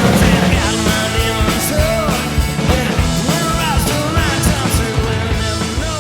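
Rock music with a singing voice, drums and band.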